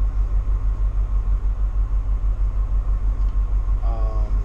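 Coach bus's diesel engine idling: a steady low rumble that throbs several times a second. A short pitched sound comes near the end.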